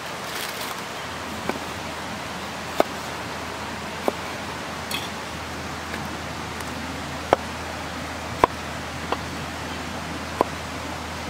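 Tomatoes being cut into wedges by hand over an earthenware dish: short sharp clicks at irregular intervals, about one every second or so, over a steady hiss.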